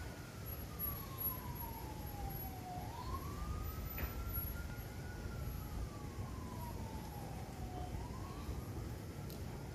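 Siren wailing, slowly rising and falling in pitch about every five seconds, over a steady low rumble.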